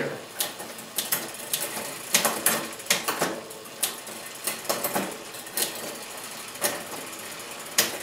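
Bicycle chain running over the rear cassette and derailleur pulleys as the drivetrain is turned, with sharp clicks every half second to a second as the rear derailleur shifts the chain from cog to cog. The shifting runs without excess rumbling: the cable tension is set at the barrel adjuster to a reasonable setting.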